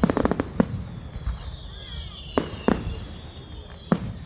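Fireworks display: a quick volley of sharp cracks right at the start, another crack just after, then single bangs about two and a half, nearly three and four seconds in. Faint high whistles glide slowly down in pitch throughout, over a low rumble.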